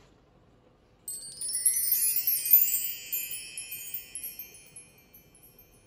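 A twinkling wind-chime sound effect: a sudden shower of high, bright chime tones about a second in that rings on and fades out over the next few seconds.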